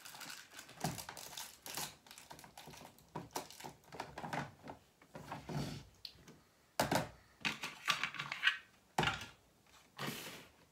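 Hands handling small objects on a desk: irregular clicks, taps and rustles of plastic and paper.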